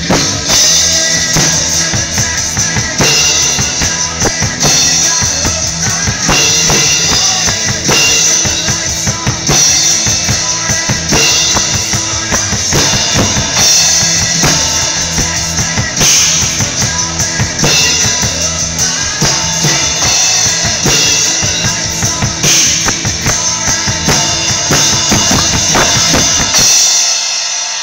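Acoustic rock drum kit with Zildjian cymbals played hard, with bass drum, snare and cymbal hits over the recorded rock song's guitars and bass. Near the end the playing stops and the cymbals ring on.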